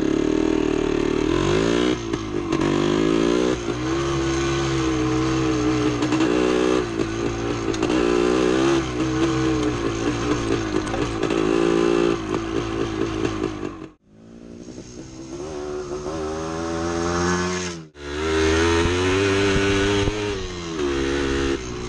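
A 1975 Yamaha DT250's single-cylinder two-stroke engine pulls the bike along a woods trail, its revs rising and falling with the throttle. About two-thirds of the way through the sound cuts out abruptly, returns as a climbing rev, and drops out once more before the engine resumes.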